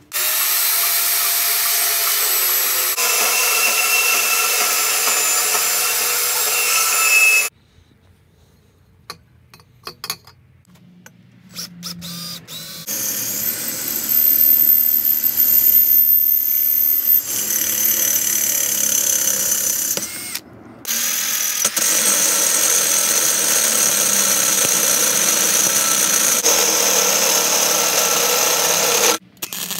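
Power drills boring into a steel pipe held in a vice: a DeWalt cordless drill drilling through the pipe wall, then a corded tool with a cylindrical cutting bit. Three long, steady runs of motor whine, with a quiet pause of several seconds holding a few clicks after the first run, and a brief stop about two-thirds of the way through.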